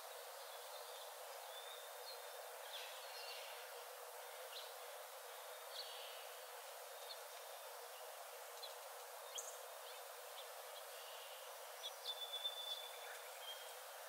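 Scattered short, high bird calls and chirps over a steady, faint hiss of forest ambience, with a quick run of calls near the end.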